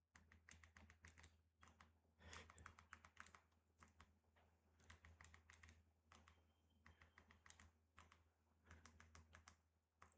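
Faint clicking of remote-control buttons pressed in quick runs, over a low steady hum.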